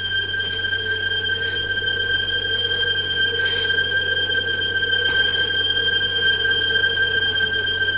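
A steady, high-pitched tone held without a break, with a fainter lower hum beneath it.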